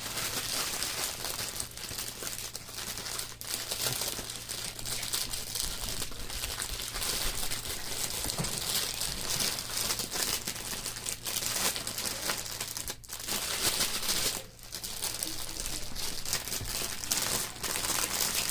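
Small plastic bags of diamond-painting drills crinkling and rustling as they are handled and opened, with brief lulls near the end.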